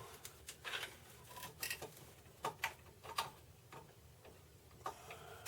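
Light, irregular plastic clicks and rattles of power supply cables and their connectors being handled and fitted into place.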